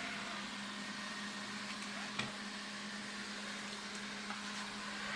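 Alfawise V8S robot vacuum cleaner running: a steady whir of its suction motor and brushes with a constant low hum, and a single sharp click about two seconds in.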